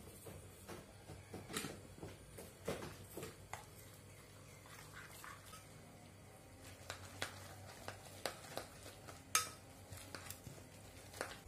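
Chopsticks tapping and clicking against a glass mixing bowl while tossing flat rice noodles with raw egg, in a run of irregular light clicks with one sharper tap about three-quarters of the way through.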